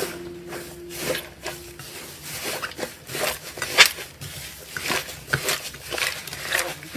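Slime being squished and handled: irregular sticky crackles and pops, some louder than others. Background music fades out about a second and a half in.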